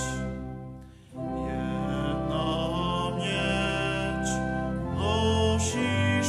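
A man singing a hymn in Polish over held instrumental accompaniment. The music dips briefly about a second in, then the next phrase begins.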